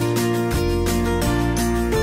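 Background music with a steady beat, carried by sustained chords.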